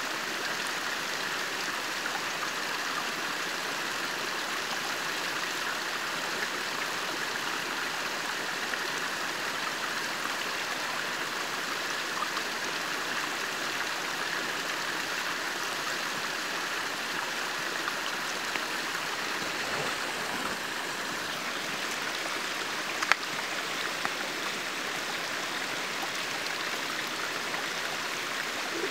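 A small stream of water running steadily over a log and rocks close by, a constant trickling flow. One sharp click stands out about two-thirds of the way through.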